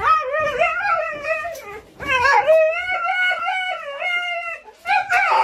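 Dog howling in long, wavering calls: one of about two seconds, a longer one of about two and a half seconds, and a third starting near the end.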